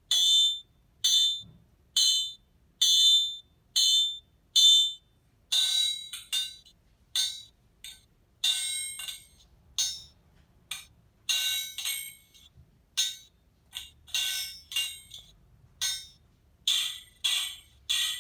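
Recorded blacksmith hammer strikes on an anvil, played from a blacksmith sound-effect chip through a small speaker, thin with no low end. Clear ringing blows about once a second at first, then about five seconds in a faster, uneven run of strikes, some in quick pairs.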